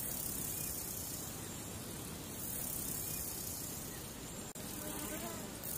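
Steady hiss and room noise from an open feed, with no distinct event and a very brief dropout about four and a half seconds in.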